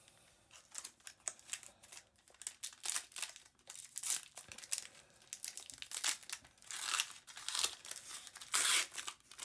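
Plastic wrapper of a 2019 Panini Prizm trading card pack crinkling and tearing as it is opened by hand, in a run of short rustles and rips that grow louder in clusters toward the end.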